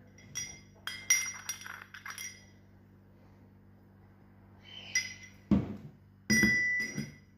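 Clinks of a utensil against a mortar (mehraz) holding freshly ground cloves, each strike ringing briefly. There is a cluster of clinks in the first two seconds, then a few more near the end, two with a dull thump, the last ringing on for most of a second.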